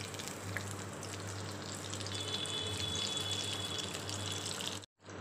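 Egg-and-breadcrumb-coated bhetki fish fillet deep-frying in hot oil in a kadai: a steady bubbling sizzle over a low hum. The sound breaks off for a moment near the end.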